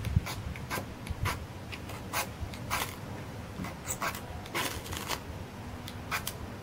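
About a dozen short, sharp scrapes at irregular intervals of roughly half a second: a cutter-knife blade struck along a mischmetal fire-steel rod, showering sparks onto a small pile of magnesium shavings to light them.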